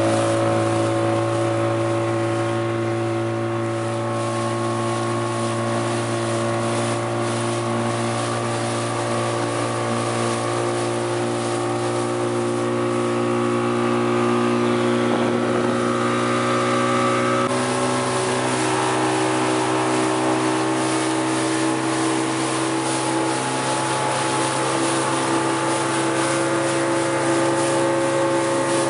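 Speedboat engine running steadily under way, with wind noise on the microphone. The engine note shifts abruptly about two-thirds of the way through.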